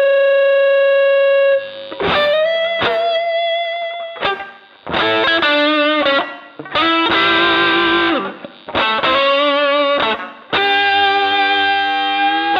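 Electric guitar played through an MXR Dynacomp compressor pedal. A long sustained note stops about a second and a half in, then short picked phrases and chords follow, some with vibrato, each cut by brief gaps.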